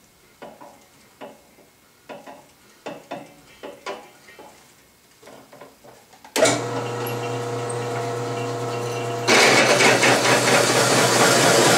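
A few separate metal clicks and knocks as a step clamp is set on the drill press table. About six seconds in the drill press motor starts with a steady hum, and about three seconds later the hole saw bites into the steel channel, adding a much louder, rough cutting noise.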